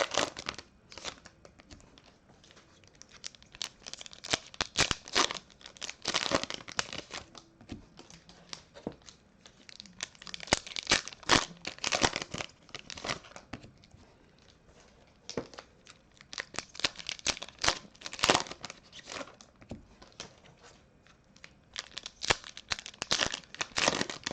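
Foil trading card pack wrappers being torn open and crinkled, in several irregular spells of crackling with short quiet gaps between them.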